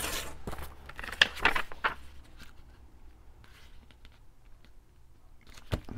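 Tracing paper being handled and creased on a desk: a cluster of sharp crinkles and taps in the first two seconds, then quieter rustling with a few more clicks near the end.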